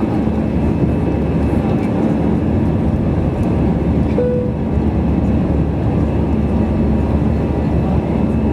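Steady cabin noise inside an Airbus A320-214: the drone of its CFM56 engines and the rush of air around the cabin, with a brief short tone about four seconds in.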